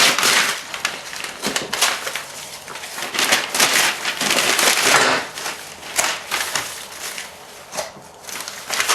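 Protective paper being peeled off the screen of an HP 27-inch curved monitor, crackling and rustling in several uneven pulls.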